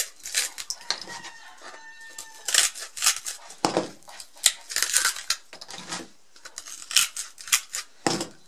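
Hand tin snips biting through a 230 mm abrasive cutting disc: a series of sharp crunching snips at an irregular pace as the disc is trimmed in a spiral down toward 125 mm. About a second in, a faint held tone lasts roughly a second behind the snips.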